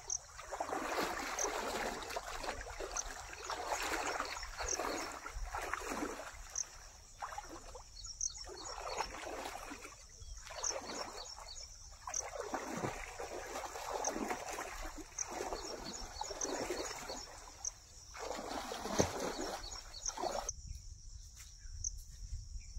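Muddy shallow water splashing and sloshing in repeated surges, one every second or two, as a man wades and churns it with his legs, until near the end. Under it runs a steady high chirring of insects.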